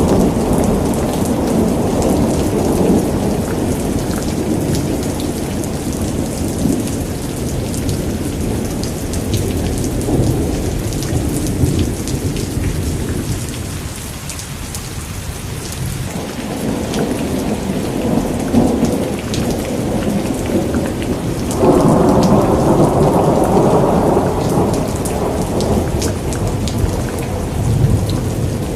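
Thunderstorm: steady heavy rain with many drops pattering on surfaces, under rolling thunder that swells and fades. The rumble eases in the middle, and a loud new peal breaks in sharply about two-thirds of the way through.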